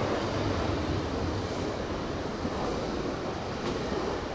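GO Transit commuter train passing, a steady rumble that slowly fades.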